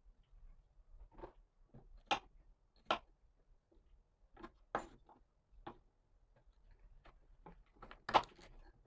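Kitchen knife knocking and scraping on a wooden cutting board as bitter melon is cut open and seeded: irregular sharp taps, the loudest about two, three, five and eight seconds in.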